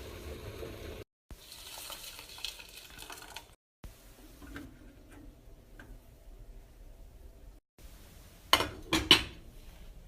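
Kitchen cooking sounds: a utensil stirring and clinking in a pot or pan over a steady sizzle, in short pieces broken by abrupt cuts, with two sharp clatters near the end.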